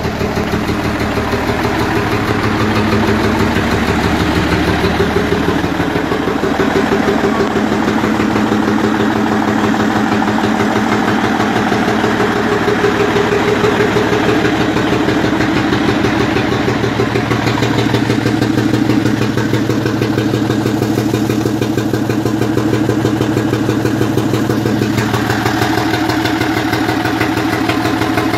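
FNM (Fenemê) truck's inline-six diesel engine idling steadily, with an even firing rhythm. The sound grows brighter near the end.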